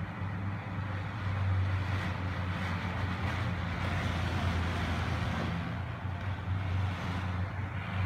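Strong wind blowing in through a switched-off bathroom exhaust fan, which it spins backwards, over a steady low hum. The wind swells in a gust about a second and a half in.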